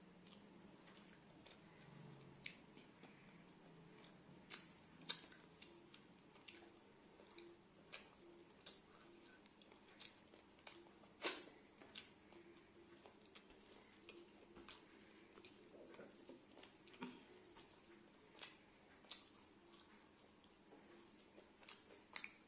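Faint chewing and mouth sounds of a person eating rice and curry, with scattered soft clicks and smacks; one sharper click about eleven seconds in.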